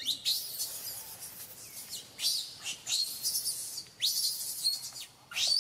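Baby macaque screaming: a rapid string of loud, high-pitched shrieks, many dropping sharply in pitch at the end.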